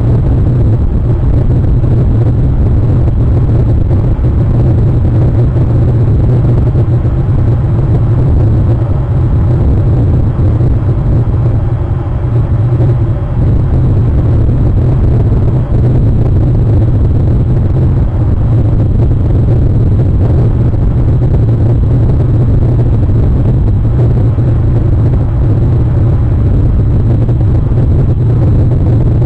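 A loud, steady low rumble with no clear pitch and no breaks.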